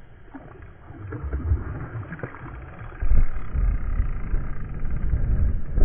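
Muffled rumbling and knocking from handling of a body-worn camera as a hooked coho is played from a kayak, with water splashing from the fish. It gets much louder about halfway through.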